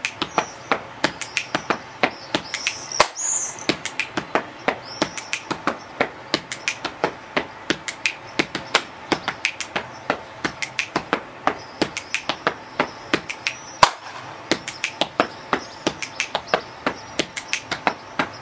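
Body percussion: a steady, rhythmic run of finger snaps and hand slaps on the chest and body, several strokes a second.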